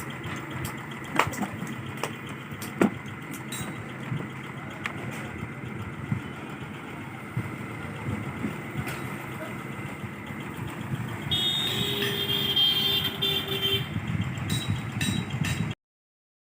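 Steady background noise of road traffic, with two sharp clicks about a second and about three seconds in, and a louder stretch with a horn-like tone near the end. The sound cuts off abruptly shortly before the end.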